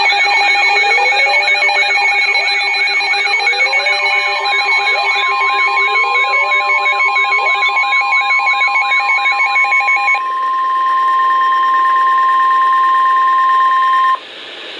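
Emergency Alert System attention tones from more than one receiver sounding over each other: steady tones mixed with warbling tones and repeated rising sweeps. About ten seconds in most of them stop, and a single steady tone carries on alone until it cuts off near the end.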